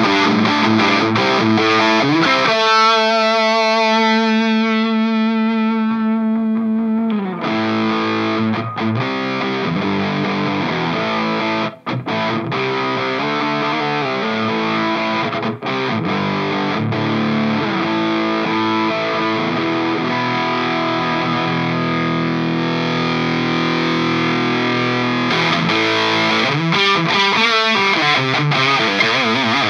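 Ibanez electric guitar played through a Nux Plexi Crunch overdrive pedal into a valve amp and 2x12 cabinet, giving a crunchy, Marshall-style distorted tone. Fast picked riffs and lead lines, a held note shaken with vibrato about three seconds in, two brief stops, and a long sustained chord near the end.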